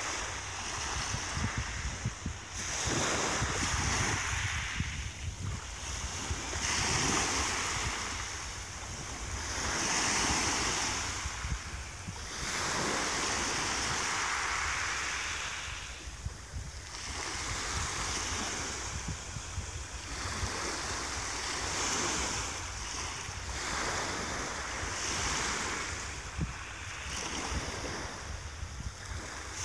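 Small waves of a calm sea breaking gently on a shingle-and-sand beach, one wash swelling and fading every three or four seconds.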